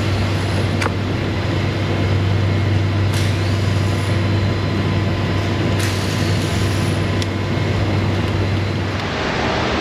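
A steady, loud low machine hum that stops about nine seconds in, over a hiss-like noise, with a few light clicks.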